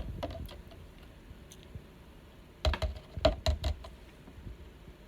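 Metal fork clinking and knocking against the container while stirring the water-and-oil mixture. A few light clicks come near the start, then a quick cluster of louder clicks and knocks about halfway through.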